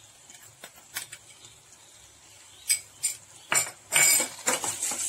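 Metal spoon clinking and scraping against the sides and bottom of a steel pot while stirring a thick masala. There are a few sharp, separate clinks at first, then a quicker, louder run of knocks and scrapes from about three and a half seconds in.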